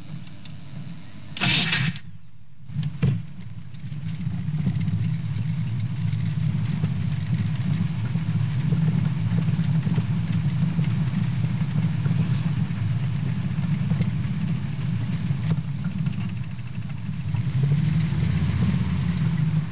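Safari vehicle's engine starting, with two short loud bursts in the first three seconds, then running as the vehicle moves slowly forward; a steady low rumble that swells near the end.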